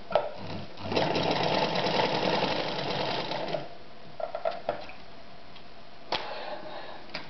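Podolsk 142M sewing machine running under its electric motor with a dense mechanical clatter for just under three seconds, starting about a second in and stopping abruptly. This is a test run with the play in its cam discs just reduced. A few light clicks and knocks of handling follow.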